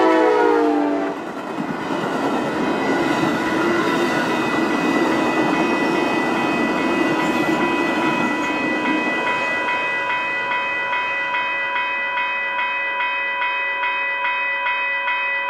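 Amtrak passenger train passing a grade crossing. The horn's last blast drops in pitch as the locomotive goes by, then the cars roll past, thinning out about nine seconds in. The crossing bell rings steadily at about two strokes a second throughout.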